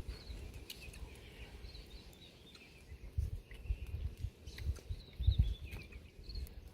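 Small birds chirping in short, high calls scattered through the outdoor ambience, over intermittent low rumbles.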